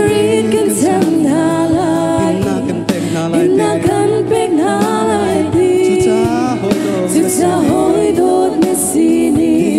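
A group of women singing a worship song together into microphones, backed by a live band with electric guitar and drums.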